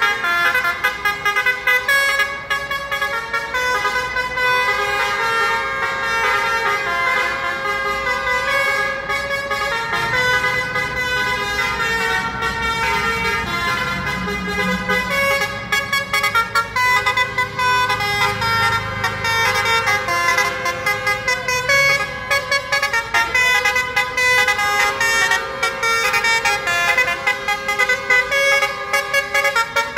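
Many vehicle horns honking at once, overlapping into a continuous din over passing traffic. A low engine rumble from a passing vehicle joins in the middle.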